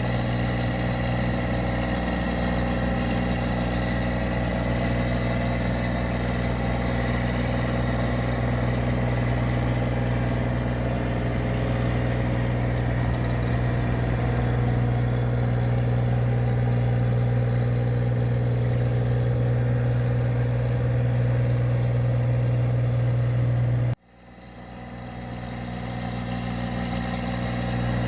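Engine of a paddy machine running steadily at constant speed, a strong even hum. About 24 s in the sound cuts off abruptly, then comes back gradually over a few seconds.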